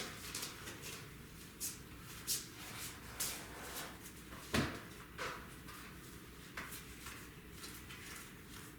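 Faint rustling and scattered light clicks of a booster pack wrapper and trading cards being handled, with one louder knock about four and a half seconds in.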